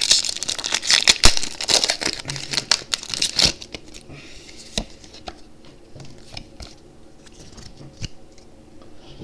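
Foil wrapper of a Pokémon TCG booster pack crinkling and tearing as it is opened, dense for about the first three and a half seconds. After that only faint scattered clicks and rustles.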